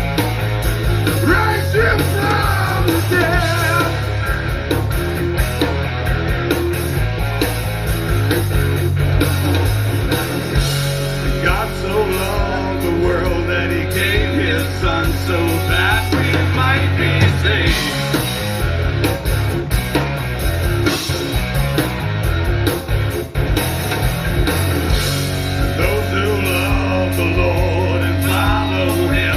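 Live rock band playing a song: electric guitar, bass and drums, with singing over it.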